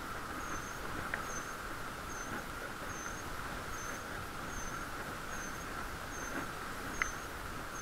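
Muffled riding noise of a bicycle, heard through a waterproof camera case: a steady hiss, with a faint high chirp repeating evenly a little more than once a second and a couple of small clicks.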